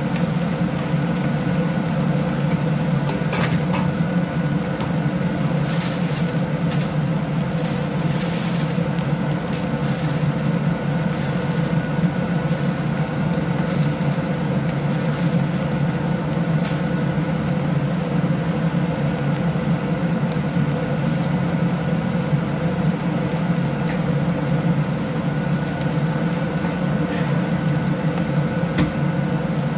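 Steady machine hum, like a kitchen appliance motor, with scattered sharp clinks and clicks in the first half, such as a utensil or cashews against the wok.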